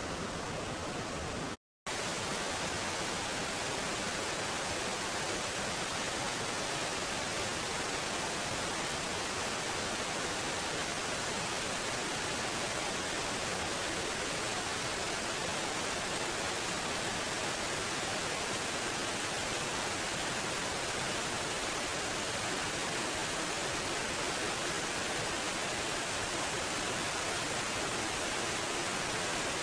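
Waterfall pouring over rocks, a dense, steady rushing hiss. It drops out completely for a split second near the start.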